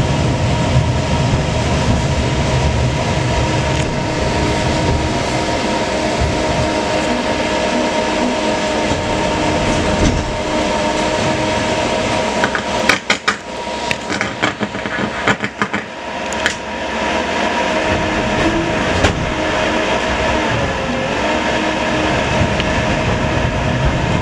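Tram running along its track, heard inside the car: a steady low rumble with a constant whine from the running gear, and about halfway through a quick run of sharp clacks from the wheels on the track.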